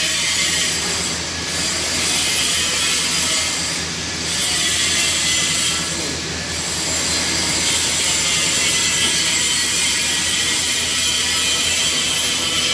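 Steady hissing noise over a low hum in a welding booth, with slight swells every couple of seconds, typical of argon (TIG) welding practice with shop ventilation running.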